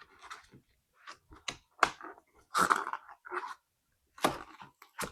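Handling of blind-box packaging: irregular rustles and scrapes, with a couple of sharp taps or clicks, about two and four seconds in.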